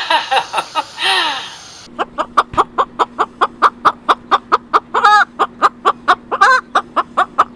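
A parrot calling in a fast run of short, evenly repeated calls, about four a second, over a steady low hum, after a brief burst of other calls that cuts off about two seconds in.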